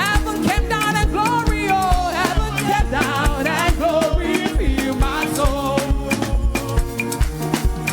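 Live church worship band playing an upbeat gospel groove: a steady drum and bass beat under sustained chords, with a wavering melody line on top.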